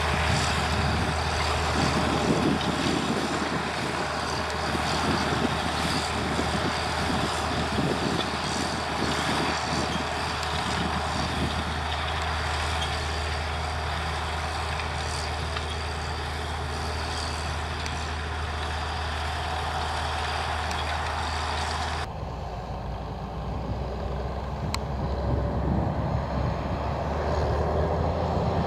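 John Deere 7920 tractor engine running steadily under load as it pulls a Horsch Joker disc cultivator through the soil. About 22 seconds in the sound cuts abruptly to a different tractor, a Case IH Magnum 335 pulling a Väderstad seed drill, which grows louder near the end.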